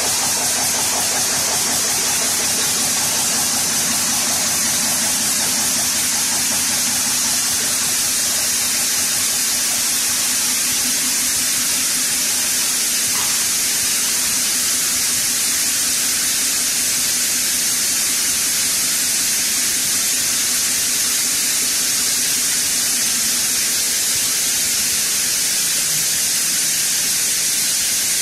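Large compressed-air-started stationary diesel generator engine running with its cylinder taps open, the engine's firing coming through as a loud, steady hiss with a fast even pulse. The taps are opened to shut the engine down.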